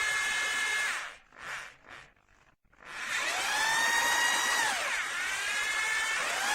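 Bosch GBH 2-21 SDS-plus rotary hammer's electric motor whining as it runs without load, switched on and off by the trigger. It winds down about a second in, gives two short blips, then spins up again with rising pitch about three seconds in, eases off briefly and speeds up once more near the end.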